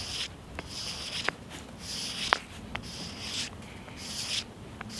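A bar of stropping compound rubbed back and forth along the coarse inside of a leather belt, in about seven short even strokes with a few light ticks: the compound being loaded onto a belt used as a strop.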